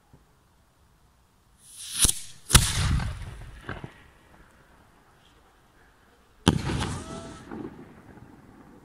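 3-inch cylinder firework shell going off in the sky. A short rising hiss about one and a half seconds in is followed by two sharp bangs about half a second apart, then a smaller pop. Another loud bang comes about six and a half seconds in and fades out over about two seconds.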